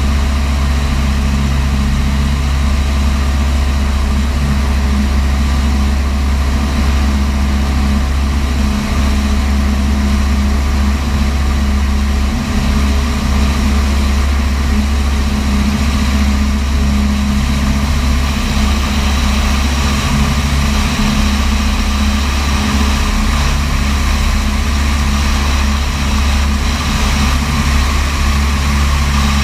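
Light aircraft's piston engine and propeller running steadily in cruise flight, a constant low drone with no change in pitch.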